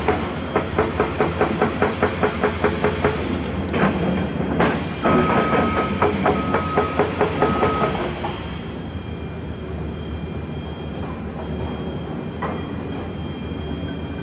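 Caterpillar hydraulic excavator working under load: its diesel engine and hydraulics clatter with a fast, regular knocking about four times a second, and a few louder metallic clanks. After about eight seconds it drops to a quieter, steady engine drone.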